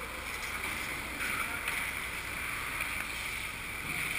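Indoor ice rink ambience: skate blades gliding and scraping on the ice over a steady low hum and hiss.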